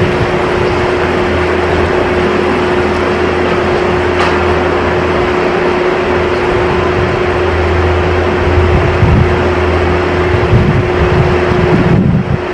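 A loud, steady mechanical drone with a constant hum, like a running motor or pump, with some buffeting on the microphone near the end.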